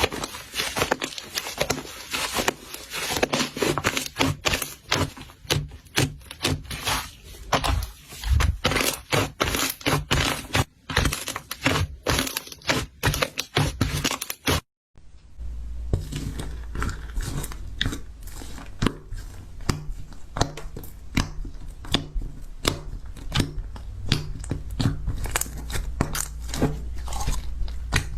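Slime being squeezed and pressed by hand, making dense crackling and popping clicks. About halfway through it cuts to another clip, where the pops are sparser over a low steady hum.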